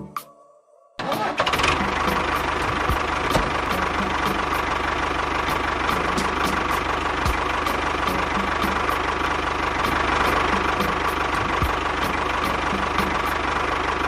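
A machine's engine-like running noise starts abruptly about a second in and runs steadily, with a low hum and a steady whine.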